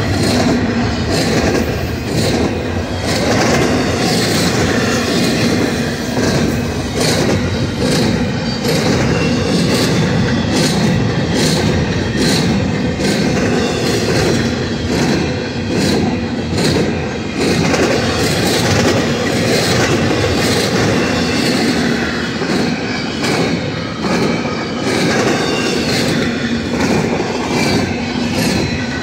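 Double-stack intermodal well cars of a freight train rolling past close by: a loud, steady rumble of steel wheels on rail, broken by irregular clicks and clanks about once a second as the wheels pass.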